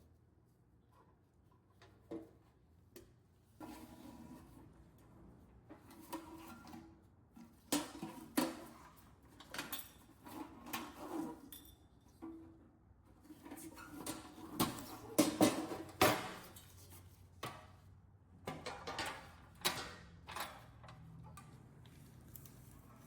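Irregular clinks, knocks and short scraping strokes of metal being handled and worked by hand, busiest in the middle.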